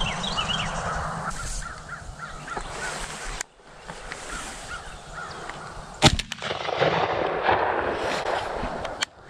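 Small birds chirping, then crows cawing and a single loud shotgun shot about six seconds in from a Benelli Super Black Eagle III semi-automatic shotgun.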